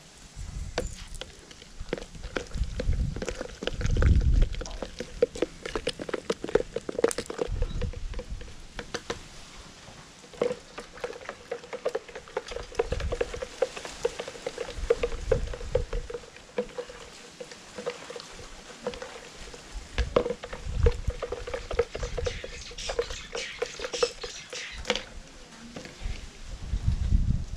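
Wooden stick stirring porridge flour into water in a plastic jug, scraping and clicking against the sides in quick repeated strokes. A few low thumps come and go.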